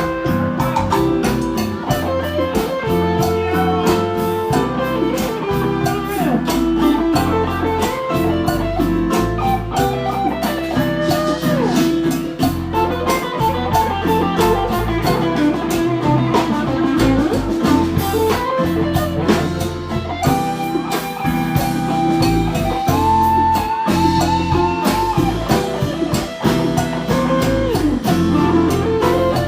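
Live band playing an instrumental with a lead electric guitar carrying sustained, bending melody lines over bass and drum kit.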